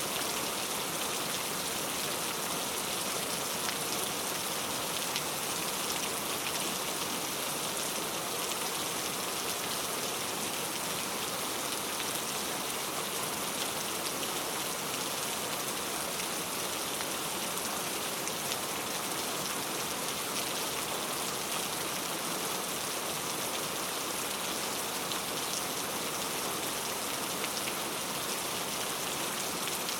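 Steady rain falling and pattering on a surface: an even hiss that does not let up, with the faint ticks of single drops.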